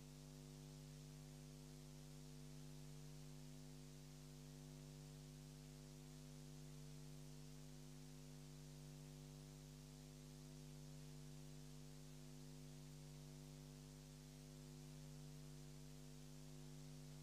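Near silence: a faint, perfectly steady electrical hum with hiss.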